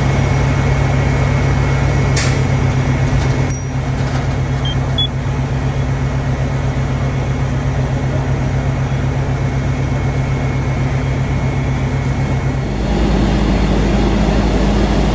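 Fire truck engine running steadily at high revs to drive its pump, a loud, even drone with a pulsing low hum. Near the end the drone drops to a deeper pitch. There is a sharp click about two seconds in.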